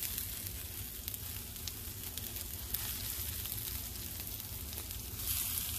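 Canned salmon and onions sizzling in a hot pan while a wooden spoon stirs and scrapes through them, with small clicks of the spoon. The sizzle swells near the end.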